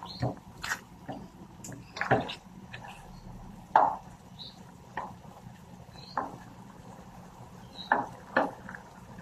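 A black slotted spatula stirring chicken pieces in thick ketchup sauce in a white pan: irregular scrapes and knocks against the pan about once a second, the loudest about four seconds in, over a low steady hum.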